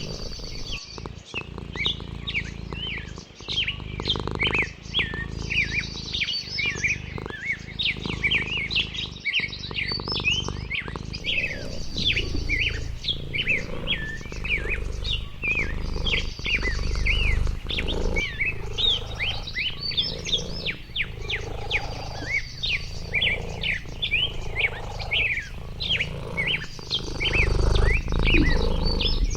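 A chorus of small birds chirping rapidly over one another, with a short, high, buzzy trill recurring every few seconds and a low rumble underneath.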